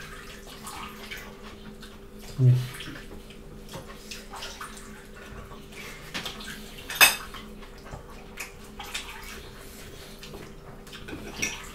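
Mukbang eating sounds: wet chewing and lip-smacking of rice and meat eaten by hand, with light clinks of plates and cutlery and one sharp clink about seven seconds in. A short hummed "mm" comes about two and a half seconds in, over a faint steady hum.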